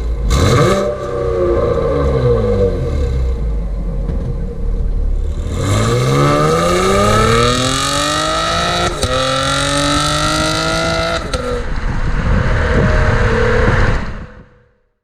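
2018 Chevrolet Camaro's 3.6-litre V6 exhaust revving. The revs fall at first, then climb hard from about six seconds in. Near nine seconds the pitch steps down as it shifts up a gear and climbs again, before easing off and fading out near the end.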